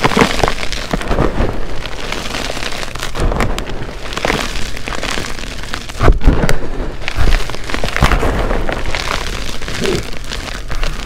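Blocks of glitter-flecked gym chalk being crushed and ground under a gloved hand: a dense, continuous crunching and crumbling made of many small cracks, louder for a stretch about six seconds in.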